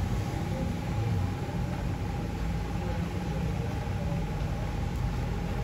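Steady low background rumble with a faint constant hum; no distinct events stand out.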